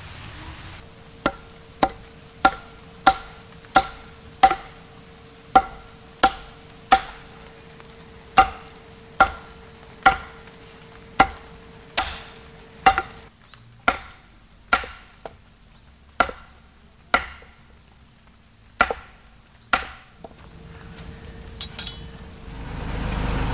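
A hand hammer striking hot steel rebar on a steel block set on an oak-stump anvil: about two dozen ringing metal blows, roughly three every two seconds, in an even forging rhythm. Near the end comes a brief metallic clatter, and then a low engine rumble starts.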